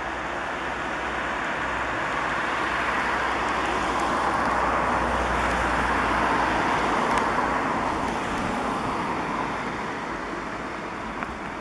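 A road vehicle passing by: steady tyre-and-engine noise that swells gradually to a peak about halfway through and then fades away.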